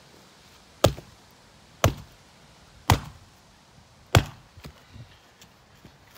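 An axe chopping into an old wooden plank lying on the ground: four sharp strikes about a second apart, then a few fainter knocks.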